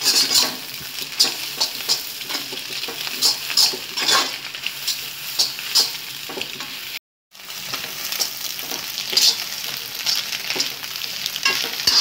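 Shredded cabbage, carrot and capsicum stir-fried on high flame in a wok: a steady sizzle with repeated scrapes of a metal spatula against the pan, the high heat driving off the cabbage's moisture. The sound cuts out for a moment about seven seconds in.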